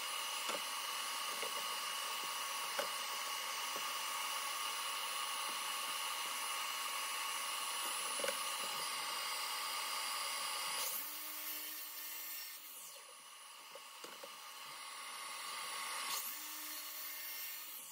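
Makita cordless brushless sliding miter saw cutting 12 mm plywood pieces to length: the motor whines up, runs about a second and winds down, twice, about 11 s and 16 s in. Before that there is a steady hiss.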